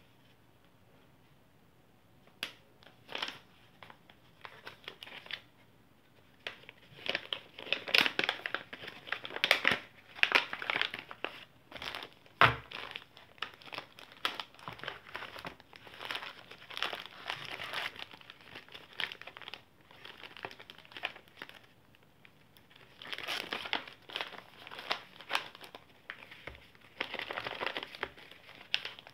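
Plastic bags and paper pouches crinkling and rustling in irregular bursts as they are handled and packed, with one sharp tap about twelve seconds in.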